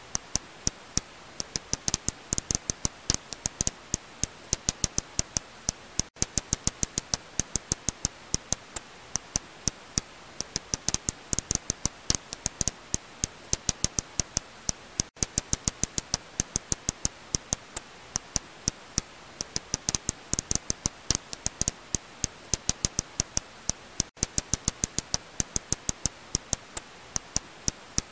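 Serotine bat echolocation calls, heard as a rapid, irregular train of sharp clicks, several a second. Louder clusters of clicks recur every nine seconds or so.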